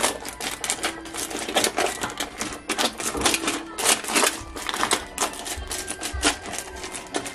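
A spatula stirring unpopped popcorn kernels and Skittles candies on aluminium foil in an air fryer basket: a quick, irregular rattle of hard kernels and candies clicking and scraping over the foil.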